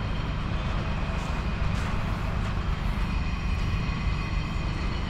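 Steady low rumble of outdoor city ambience, distant traffic, with wind buffeting the microphone.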